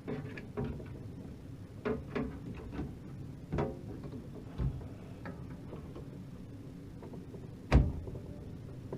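Scattered clicks and knocks of a graphics card and PC case parts being handled and fitted, about eight in all, the loudest knock near the end.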